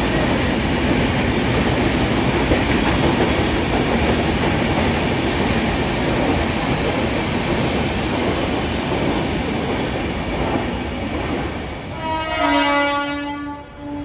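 Steady rolling noise of an express train running past a station platform, fading about twelve seconds in. A locomotive's air horn then sounds for about a second, with a short second blast just after.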